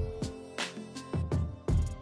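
Background music with a steady drum beat and held instrumental notes.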